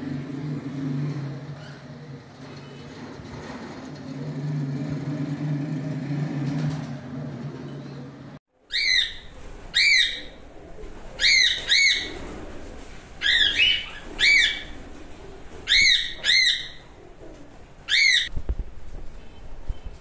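A low steady hum, then after a sudden cut about eight seconds in, a flock's cockatiels give repeated shrill calls: about nine over ten seconds, some in quick pairs.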